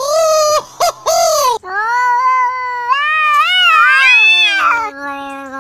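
A loud wailing cry like a baby's, cut off about a second and a half in. Then a cat yowls in one long drawn-out call that wavers up and down in pitch and sinks into a low moan near the end.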